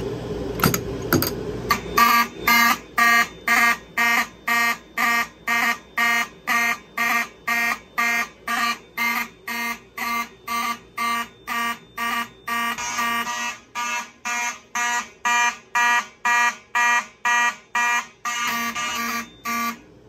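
A fire alarm pull station is pulled with a few sharp clicks. About two seconds later the fire alarm system's horns start sounding in loud pulses, about two a second, and cut off suddenly near the end.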